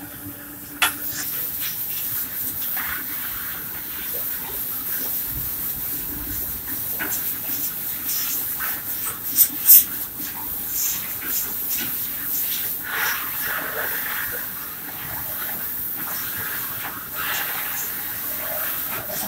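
Rotary cement packing machine running with a steady high hiss as it fills bags, while empty sacks are put on its spouts. Scattered clicks and knocks throughout, the two sharpest about halfway through.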